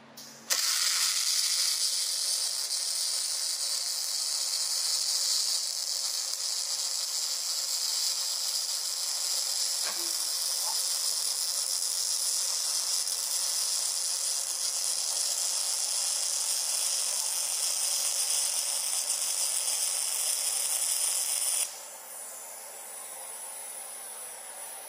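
MIG welding arc sizzling and crackling steadily for about twenty seconds. It starts abruptly half a second in and stops suddenly near the end, leaving a quieter steady hiss.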